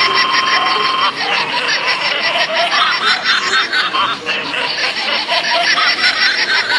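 Creepy toy doll sound effect: high, child-like giggling and snickering over a fast, even pulsing. A steady ringing tone sounds through the first second.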